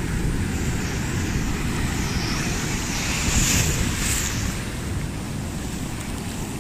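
Sea surf washing around, with wind buffeting the microphone in a steady low rumble; the rush of water swells briefly about three seconds in.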